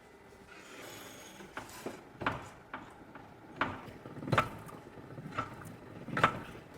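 Irregular sharp knocks and clinks of hand tools and metal car parts being handled, about five strikes with a slight metallic ring, the loudest near the end.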